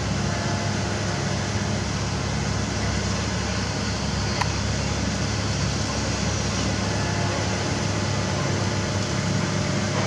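Komatsu PC195LC excavator's diesel engine running steadily, with one short sharp click about four and a half seconds in.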